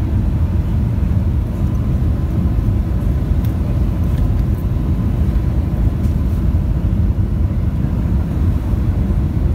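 Steady low rumble of a jet airliner rolling out on the runway after touchdown, heard inside the passenger cabin: engine and roll noise with a faint thin whine above it.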